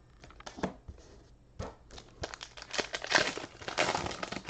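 Foil booster-pack wrapper crinkling as it is torn open, with a few light taps at first and dense crinkling over the second half.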